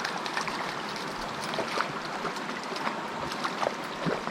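Creek water running steadily, with scattered faint ticks and clicks over it.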